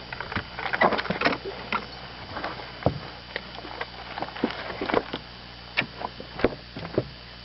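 Irregular knocks, taps and scrapes in a small boat as a hooked walleye is landed and handled, over a faint steady low hum.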